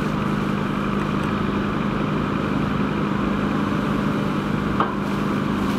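An engine running steadily under the hiss of a fire hose's water jet, with one short knock near the end.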